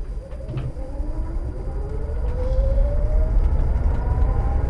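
Electric drivetrain of a 1972 VW Bus EV conversion whining as the bus accelerates from a standstill in third gear on a slight hill, the whine rising steadily in pitch before levelling off, over a low rumble of road and wind.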